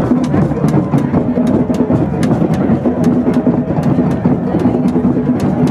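Drum circle playing: hand drums and percussion keeping a steady, fast rhythm of sharp strikes, about four or five a second, over a held low tone.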